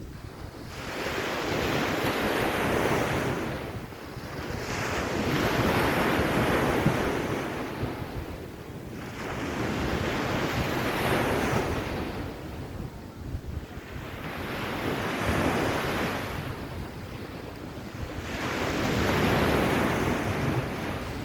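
Waves breaking and washing up on a beach, swelling and fading five times, about every four seconds, with wind buffeting the microphone.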